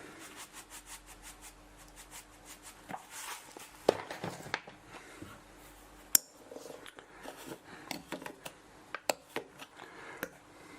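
Ground coffee being spooned into an espresso filter basket: a run of light, rapid ticks and scratches at first, then scattered sharp clicks of the combined scoop and tamper against the basket, the loudest about four and six seconds in.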